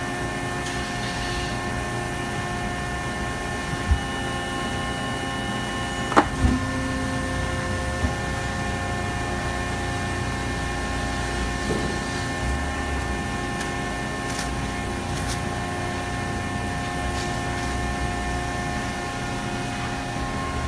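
Plastics processing machine running a cycle: a steady hum made of several held tones, with three sharp knocks about four, six and eight seconds in, the one at six the loudest.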